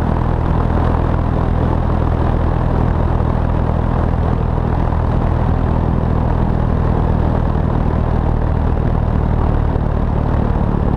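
Light single-engine airplane's piston engine and propeller droning steadily under heavy wind rush on an externally mounted camera, as the plane lands and rolls out along the runway.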